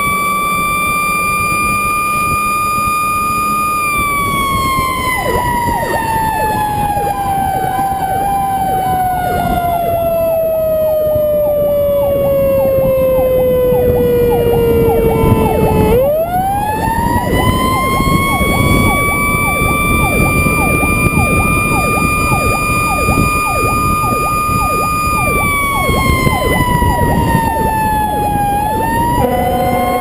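Fire truck siren wailing. It holds a high note, sinks slowly for about twelve seconds, winds quickly back up, holds again and starts to sink. The truck's engine and wind noise rumble underneath, and a lower steady tone cuts in just before the end.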